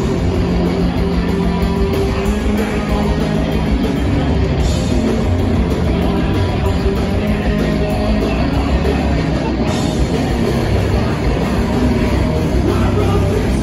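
Live hardcore punk band playing loud: distorted bass and electric guitar over a drum kit.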